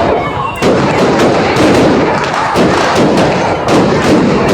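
Fireworks going off in quick succession, a dense run of sharp bangs and crackles, with a brief lull just at the start.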